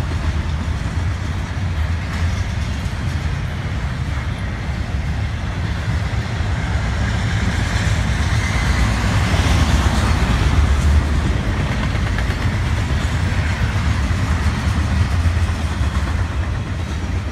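Double-stack intermodal well cars of a BNSF freight train rolling past, wheels on rail making a steady low rumble that eases off a little near the end as the last cars go by.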